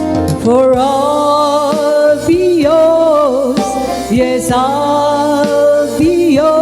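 An elderly woman singing a slow song with a live band of keyboard, bass, drums and rhythm guitar. Her voice comes in about half a second in, after a short keyboard and guitar phrase, in long held, gliding notes.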